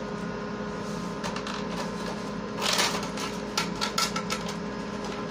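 Light clicks and rustling of small objects being handled, a few scattered taps and a short rustle about three seconds in, over a steady background hum.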